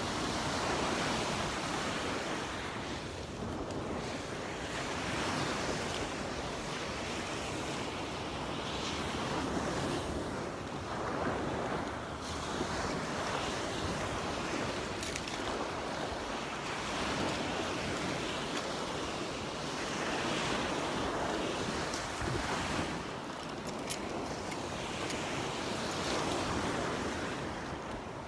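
Waves breaking and washing up on the beach, the surf swelling and falling back every few seconds.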